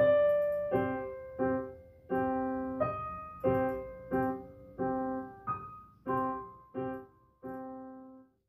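Digital piano keyboard played in a piano voice: a simple piece in block chords struck about every two-thirds of a second, each dying away. The last chord fades out near the end as the piece finishes.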